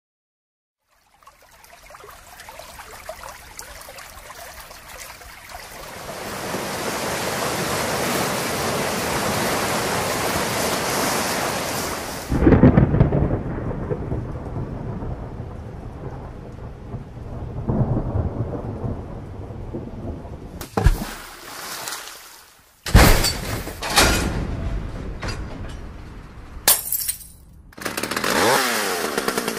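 Sound-effects montage: a rushing noise swells for about ten seconds and cuts off suddenly. Deep rumbling follows, broken by several loud bangs, and near the end come rising and falling whines.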